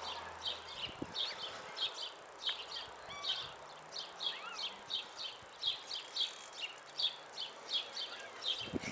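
Insect chirping steadily: short, high chirps repeating about two to three times a second.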